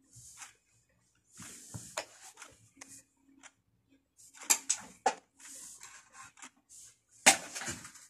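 Handling noise from an opened Philips vacuum cleaner's plastic housing and parts: scattered clicks, light knocks and rubbing, with a sharper knock about seven seconds in.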